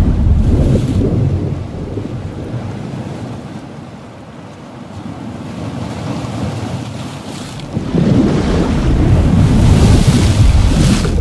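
Ocean water ambience: a low rushing, surging noise that eases off through the middle and swells back up about eight seconds in.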